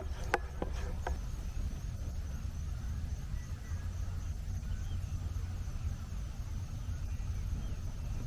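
A steady low rumble, with a few light clicks in the first second and faint chirping high above it.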